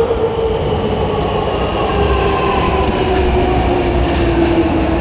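Electric train running, its motor whine slowly falling in pitch as it slows, over a steady low rumble.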